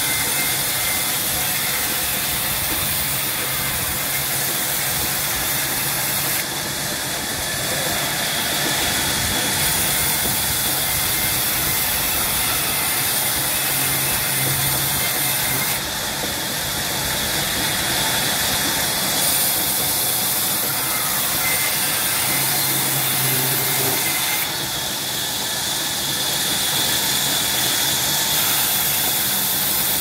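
Sawmill band saw running steadily and cutting through mango wood as a plank is fed past the blade: a continuous machine noise with a strong high hiss. The sound dips and shifts briefly about every eight to nine seconds as one pass ends and the next begins.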